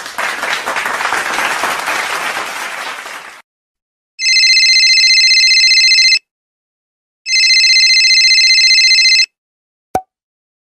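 A burst of applause fading out over about three seconds, then a telephone ringing twice, each trilling ring lasting about two seconds with a second's gap between. A short click near the end.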